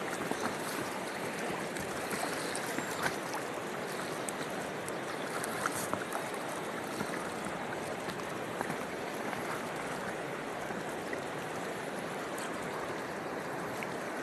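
Steady rush of river water flowing past and lapping against a kayak's hull, with scattered light splashes.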